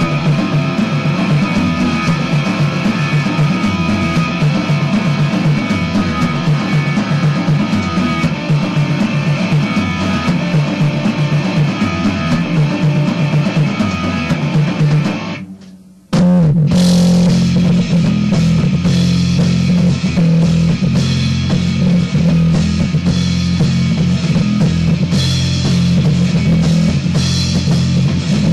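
Rock band of electric guitar, bass and drums playing, a recording made on a Lloyd's V327 boombox cassette recorder. About halfway through the music fades almost away for a moment, then the whole band comes back in at once.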